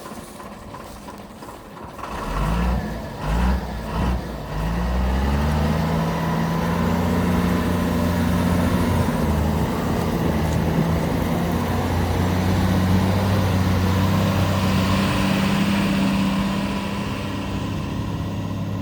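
Heavy diesel engine revving in a few short rising blips, then running steadily at raised speed.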